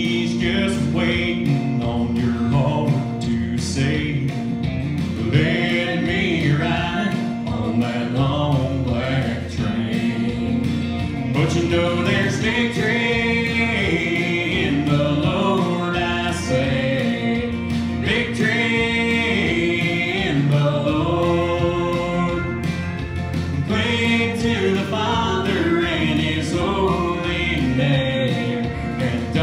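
A man and a boy singing a country gospel song together into handheld microphones, over instrumental backing music with a steady beat.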